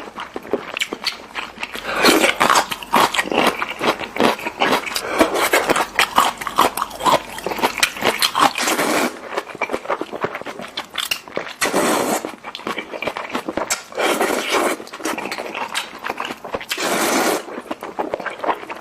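Close-miked slurping and chewing of Korean-style instant noodles: wet clicking and smacking throughout, with several short noisy slurps.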